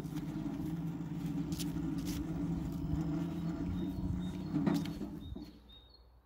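Electric drive motor of a homemade electric wheelbarrow running under the thumb throttle with a steady hum, with a few sharp clicks. It winds down and stops about five and a half seconds in as the throttle is released.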